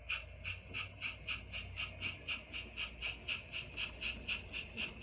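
On30 model steam locomotive's sound decoder chuffing steadily, about four chuffs a second, as the engine runs through the turnout without stalling.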